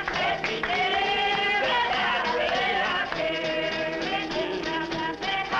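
A congregation of men and women singing a gospel hymn together in unaccompanied-sounding group voices, holding long notes.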